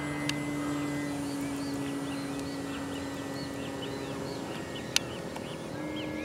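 Electric RC plane passing overhead: its NTM Propdrive 50/50 570KV brushless motor and APC 11x5.5 propeller give a steady drone. The pitch dips slightly about four and a half seconds in and rises again near the end. There is a sharp click about five seconds in.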